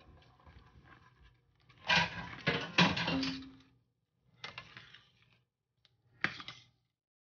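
A metal spoon stirring a stainless steel pot of boiling cocoa liquid and dumplings: three bursts of scraping and swishing against the pot. The last burst starts with a sharp clink.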